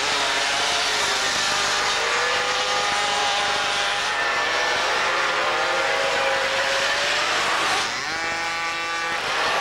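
Several 50cc two-stroke racing mopeds and scooters buzzing round a tight circuit, their engine notes rising and falling as they brake and accelerate. Near the end one machine revs up close by, its pitch climbing.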